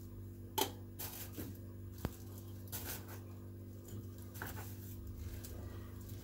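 Kitchen handling noises: a few light knocks and rustles, the loudest a sharp knock about half a second in and a click about two seconds in, over a steady low hum.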